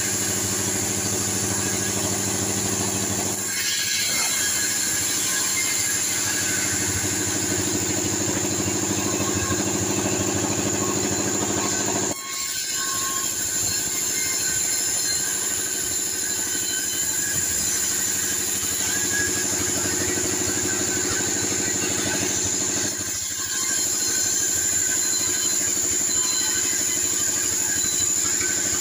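T 36 bandsaw mill running and sawing a sengon log lengthwise: a steady machine drone with a high whine. The sound dips briefly three times.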